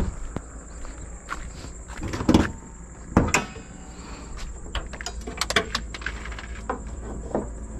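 A car bonnet being opened by hand: a few clicks and knocks as the latch is released and the bonnet is lifted and propped, over a steady high-pitched insect drone.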